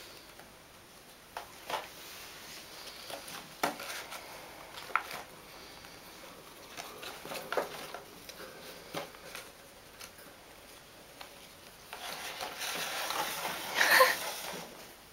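Pet rats nosing and scratching at a moulded-pulp egg box: scattered light taps and scrapes, then a longer stretch of scraping and rustling as a rat shoves the box across the carpet, loudest about a second before the end.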